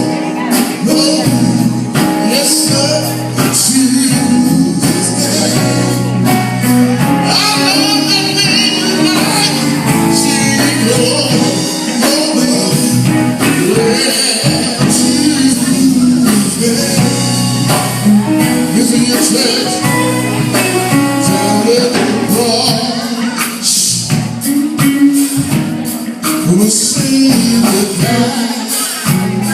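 Gospel music: voices singing over a band with a bass line and bright shaken or struck percussion.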